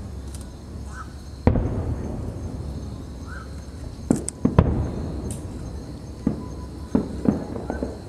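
Aerial firework shells bursting: a sharp boom about 1.5 s in, two close together around four to five seconds in, and a quick run of several more near the end, over a steady low rumble.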